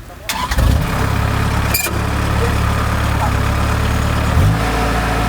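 Kubota DC-70 combine harvester's diesel engine running loud and steady, starting abruptly about a third of a second in. A sharp knock comes about two seconds in, and the engine note steps up near the end.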